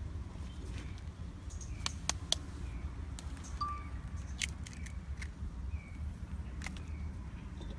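Eggshells being tapped with a knife and broken open by hand: a scatter of short, sharp clicks and cracks over a steady low rumble.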